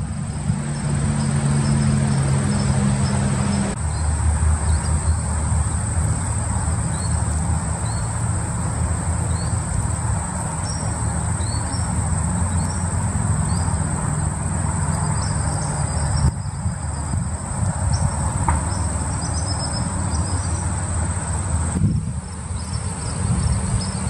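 Steady high-pitched drone of a late-summer insect chorus over a low steady hum, with short high chirps now and then.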